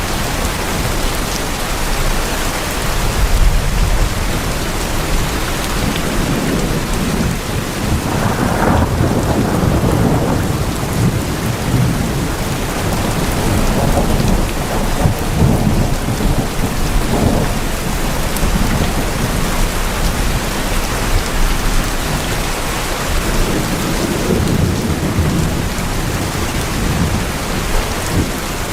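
Steady heavy rain drumming on tin roofs, with low rolling rumbles swelling and fading through the middle and later part.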